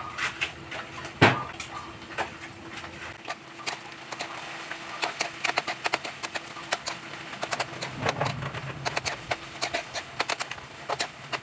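Pork, garlic, onion and shrimp paste frying in a wok: a steady sizzle of hot oil with frequent scrapes and clicks of a utensil stirring and turning the meat against the pan, and one louder knock about a second in.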